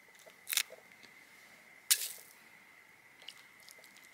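Small fish being cleaned with a knife and handled on ice: two short, sharp handling sounds, one about half a second in and a louder one about two seconds in.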